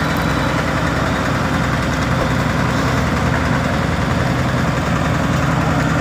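Asphalt paver's diesel engine running steadily at idle, a low even drone with no change in pitch.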